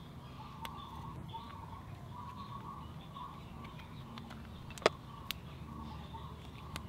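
Faint bird calls over a low, steady background rumble. A few sharp clicks come from fingers handling the plastic oil filler cap and dipstick and its rubber o-ring; the loudest is a single click about five seconds in.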